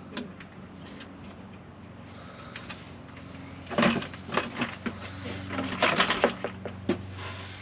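Jeep Wrangler JL's hard plastic rear cargo trim panel being worked free and lifted out, clicking and knocking against the body as its clips let go. The clicks come in two clusters, about four and about six seconds in.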